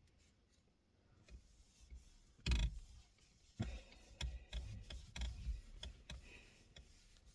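Hands scrubbing a leather steering wheel with cleaner: scattered knocks and taps with some rubbing. The loudest knock comes about two and a half seconds in, and a run of smaller knocks follows.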